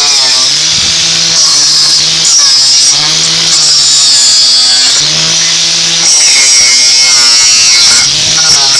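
Makita DGA452 18 V cordless angle grinder grinding rusty nail heads flush in old timber, a loud, high whine of the disc on metal. The motor's pitch sags as the disc is pressed in and climbs back, about every two seconds.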